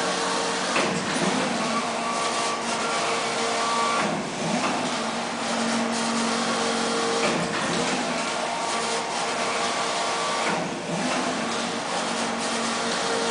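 Intarsia circular knitting machine running: a steady machine noise with several held tones that fade in and out every few seconds.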